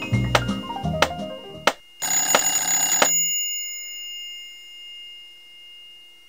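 A short run of falling musical notes plays out and stops a little under two seconds in. Then a telephone bell rings once for about a second and dies away slowly.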